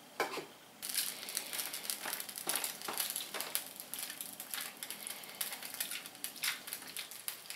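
A spoon spreading macaroni and cheese in a disposable aluminium foil pan, the thin foil crinkling and scraping in a dense, uneven run of small crackles. It is preceded by a single knock just after the start.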